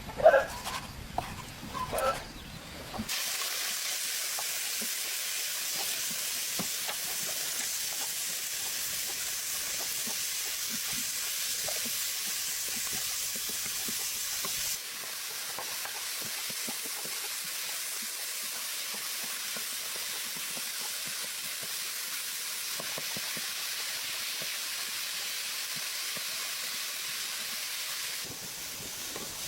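A few short calls in the first two seconds, then a steady hissing that runs on, dropping a little in level twice.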